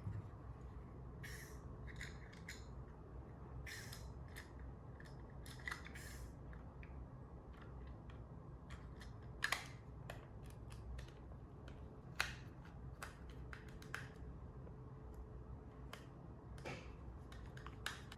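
Small plastic clicks and snaps as a finger-robot switch pusher is handled and its bottom cover is taken off and turned round, with two sharper snaps about halfway through, over a low steady hum.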